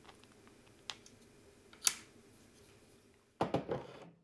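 Small hard plastic parts handled on a tabletop: a faint click about a second in and a sharper click near two seconds in. Near the end comes a short cluster of knocks as a 3D-printed motor mount is picked up and set down on the table.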